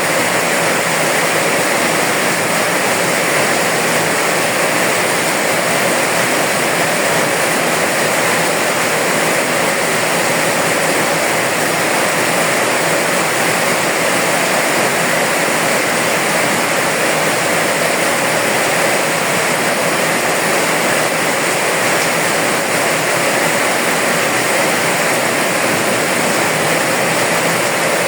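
Steady rain falling: a dense, even hiss that stays constant, with no single drops or other sounds standing out.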